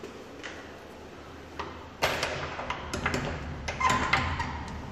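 Toilet cubicle door being handled and pushed open: a sudden loud knock about two seconds in, then irregular clatter and knocks.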